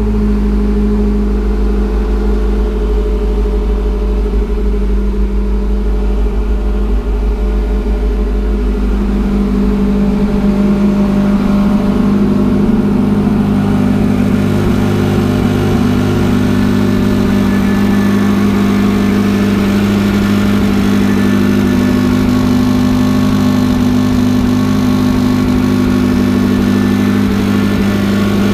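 Porsche 918 Spyder's 4.6-litre V8 running steadily at idle, with a slight change in its note about ten seconds in.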